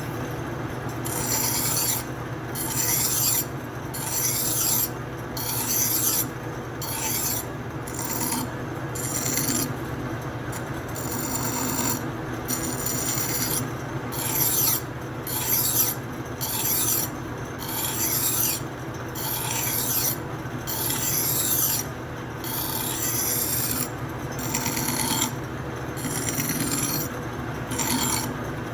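A hand file stroking across an electric motor rotor as it spins in a lathe, a rasping stroke about once a second over the lathe's steady running hum. The filing smooths chatter marks left on the rotor after it was turned down to clear its high spots.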